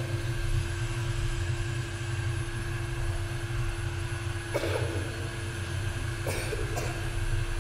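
A steady low rumbling drone with a steady hum over it, and a few short hissing bursts about four and a half and six seconds in.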